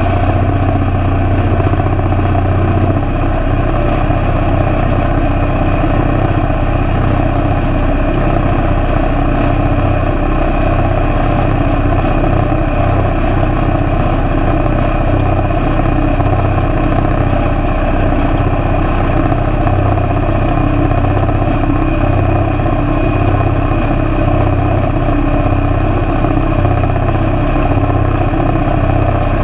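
Tractor engine running steadily as it pulls and drives a four-basket rotary hay tedder working through cut hay.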